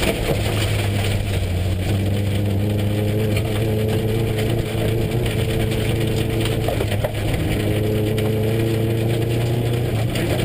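Subaru rally car's flat-four engine running at a steady, fairly constant speed, heard from inside the cabin, over the rushing rumble of tyres on a gravel road.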